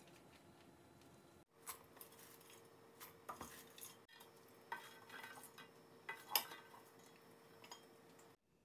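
Faint handling sounds of mung bean sprouts being moved and piled into a glass bowl on a kitchen scale: soft rustling with a handful of light clinks and knocks against the glass, the sharpest about six seconds in.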